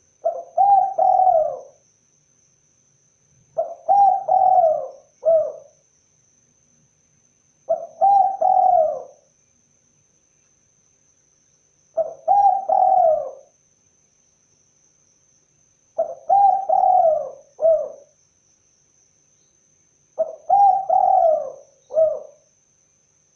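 Spotted dove (tekukur) cooing: six call phrases about every four seconds, each a quick run of coos, several ending in a short separate final note.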